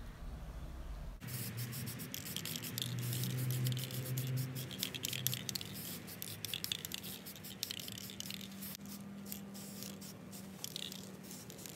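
Aerosol spray-paint can of primer hissing in repeated short bursts as it coats steel boiler bands.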